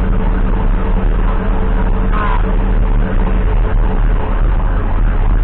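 Ambulance driving along at steady speed, heard through its dash cam inside the cab: a steady low engine and road rumble with a constant hum.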